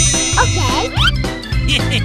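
Upbeat background music with a steady bass beat, with a few quick sliding tones that rise and fall about half a second in.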